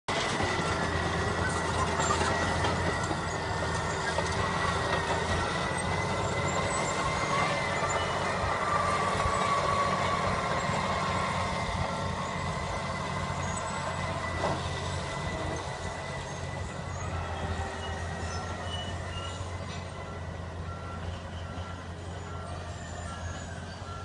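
Caterpillar D8 bulldozer's diesel engine running steadily as it works rubble, with a high whine and a back-up alarm beeping at an even pace. It grows somewhat fainter in the second half.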